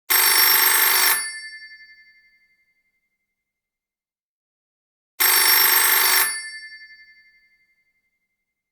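Telephone ringing twice, about five seconds apart. Each ring is a loud burst of about a second that keeps ringing as it fades away.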